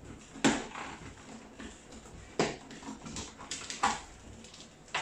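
Press-stud buttons on a motorcycle helmet's inner padding popping open as the liner is pulled away: a few sharp snaps a second or two apart, the first the loudest.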